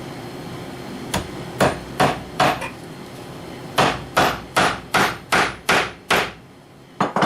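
Hammer driving tacks through leather into wood: a few taps, then a steady run of seven sharp blows at about two and a half a second, and two quick taps near the end.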